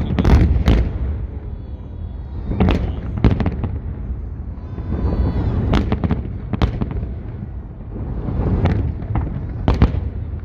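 Festive fireworks salute: large aerial shells bursting in a series of loud bangs, about eight in ten seconds at uneven intervals, over a continuous low rumbling echo.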